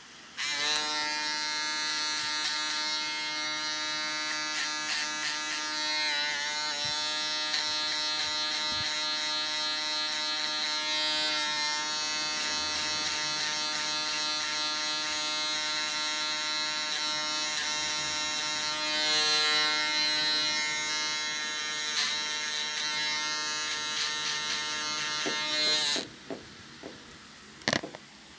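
Andis foil shaver running with a steady electric hum as it is worked over the bottom of a skin fade. Its pitch wavers briefly a few times. It switches on about half a second in and cuts off a couple of seconds before the end, followed by a few light clicks.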